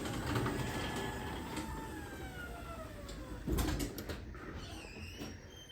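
LiftMaster DC-motor chain-drive garage door opener closing the door: the motor's whine falls steadily in pitch as it slows down, then there is a thud about three and a half seconds in, followed by a few light clicks.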